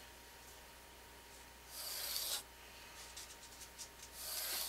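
A drawing tool scratching across drafting paper along the edge of a plastic triangle: two short strokes, about two seconds in and again near the end, with a few light taps between them.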